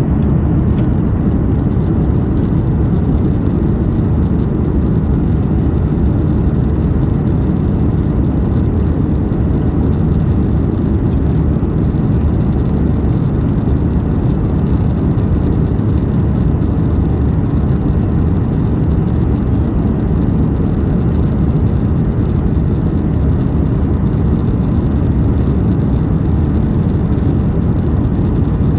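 Passenger-cabin noise of a Boeing 737-8 MAX airliner: a steady, deep rumble of the engines and the air rushing past the fuselage, with no change in pitch or level.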